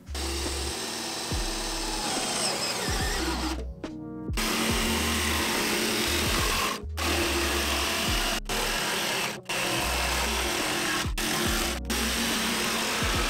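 Ryobi jigsaw running and cutting a circle in OSB board, with a gap about four seconds in and a few very brief breaks later. Background music plays underneath.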